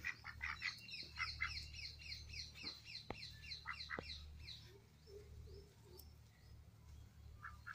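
A small bird calling a fast run of short, high chirps, each sliding slightly downward, about six a second for the first four seconds or so, then stopping.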